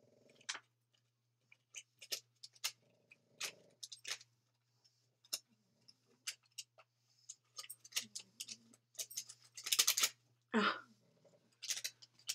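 A pug chewing and gnawing on something it has got hold of: a string of small irregular clicks and crunches, with louder bursts about ten seconds in.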